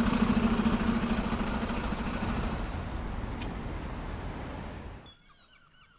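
A motor vehicle engine running with a steady hum, loud at first and fading away over about five seconds. Faint repeated bird calls follow near the end.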